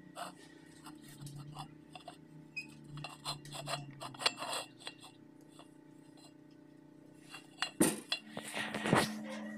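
Metal pipes clinking and knocking together as a notched pipe is handled and fitted against another, with two louder knocks near the end.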